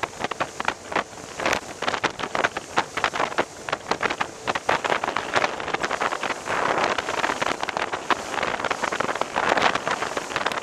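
Wind buffeting the microphone and water splashing and slapping against the bow of a small boat under way, with frequent short, sharp slaps throughout.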